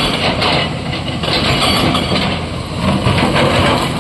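SANY SY225 excavator's diesel engine running steadily as the machine works its bucket through quarry rock.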